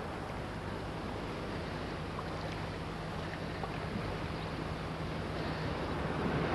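Steady wind noise on the microphone mixed with surf and running water at the beach, with a steady low hum underneath; it grows a little louder near the end.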